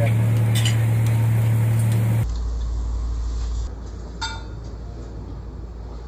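Steady low drone of a boat's engine; about two seconds in it drops abruptly to a quieter, lower hum. A short sharp clink sounds about half a second in and again near the middle.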